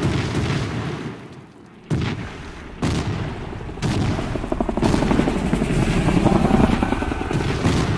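Effects soundtrack of a helicopter gunship attack. A deep explosion dies away, and fresh booms go off about two, three and four seconds in. From about halfway through, rapid automatic gunfire runs on over a deep rumble.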